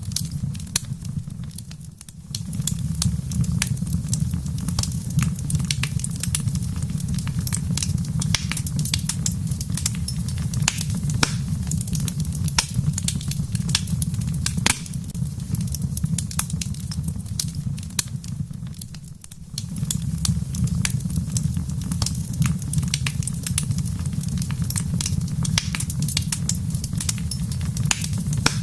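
Wood fire crackling in a fireplace, with frequent sharp pops over a steady low rumble. The sound dips briefly twice, about two seconds in and again near nineteen seconds.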